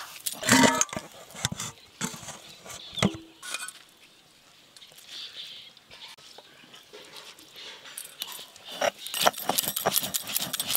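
Soaked rice being ground by hand with a stone roller on a grooved stone grinding slab (shil-nora): rough scraping and knocking strokes, with bangles clinking. The strokes are densest near the end.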